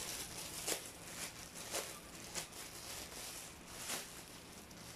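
Thin plastic packaging bag crinkling and crackling in irregular bursts as a t-shirt is pulled out of it.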